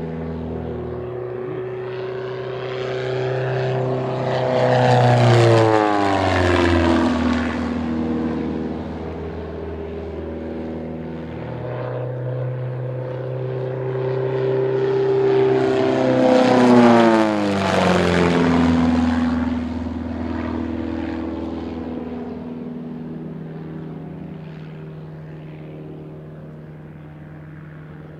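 Pitts S-1S aerobatic biplane's piston engine and propeller making two flypasts: the engine note swells, then drops in pitch as the plane goes by, about five and seventeen seconds in. It fades away near the end.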